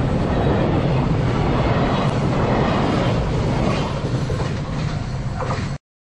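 Container wagons of a freight train rolling past close by: a steady, loud rumble and clatter of steel wheels on the rails. The sound cuts off suddenly near the end.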